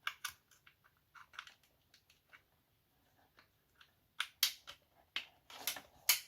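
Small plastic clicks and taps of hands handling a wireless charging station and a charging cable being plugged into its rear USB-A port, with a few longer, louder scrapes in the last two seconds.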